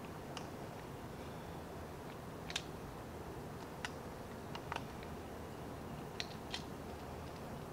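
Small, sharp metallic clicks and ticks from a screwdriver working the screws of an 1851 Navy revolver's trigger guard and grip frame. There are about seven, the loudest about two and a half seconds in, over a steady low background hum.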